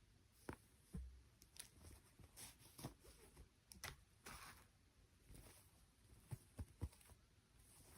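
Faint handling sounds of plastic toy parts and packaging: scattered small clicks and taps, a short rustle around the middle, and a quick cluster of sharper taps near the end.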